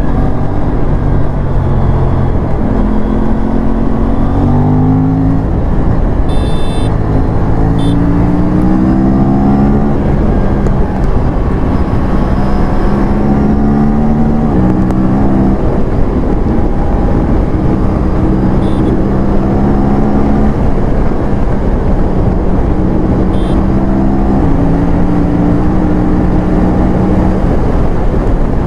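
Aprilia parallel-twin sportbike engine under hard acceleration, its pitch climbing through each gear and dropping at each upshift, several times over, with steady wind rush.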